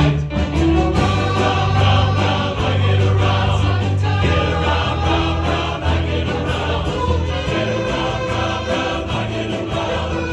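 A chorus singing a 1960s pop song in harmony over instrumental accompaniment, with steady low sustained notes under the voices.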